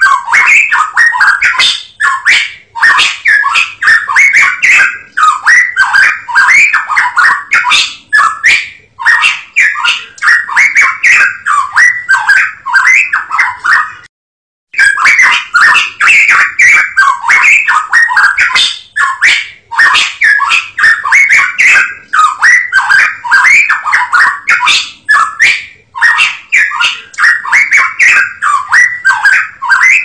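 Cucak emas Papua songbird singing: long phrases of rapid, short whistled notes, broken by brief pauses and one clean break about halfway through.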